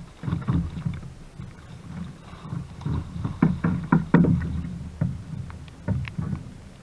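Hooked fish splashing at the surface as it is netted beside a kayak, with irregular knocks and bumps on the kayak hull from the angler's handling.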